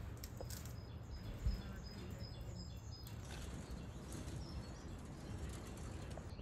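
Outdoor ambience: a steady low rumble of background noise with small birds chirping now and then, and one short thump about a second and a half in.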